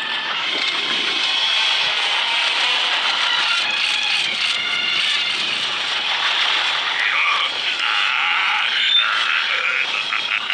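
Film soundtrack of a railway chase scene played backwards: a dense, steady wash of reversed train sound effects and music, with some held tones and scattered clicks.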